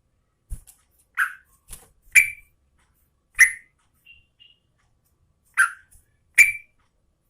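Trucukan (yellow-vented bulbul) calling in a series of short, loud notes, about one a second, with two faint higher notes in the middle.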